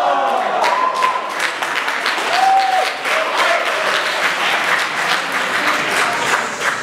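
Audience applauding, many hands clapping steadily, with a couple of short calls among the claps.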